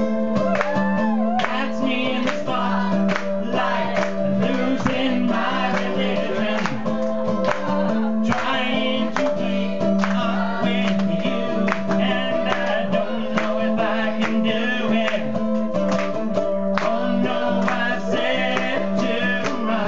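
Live music: a singer holding wavering notes with vibrato over a strummed mandolin and a sustained backing chord.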